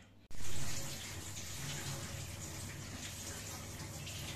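Steady rush of running water, a little louder for the first half second.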